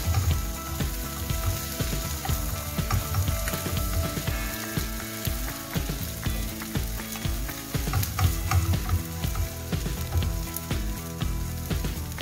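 Rolled omelet sizzling in a nonstick frying pan, with many small clicks and scrapes as a wooden spoon and a slotted spatula push it about and tap the pan.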